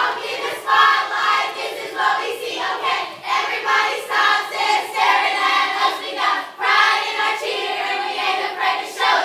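A group of girls' voices chanting a cheer together in unison, loud and rhythmic, with a steady beat.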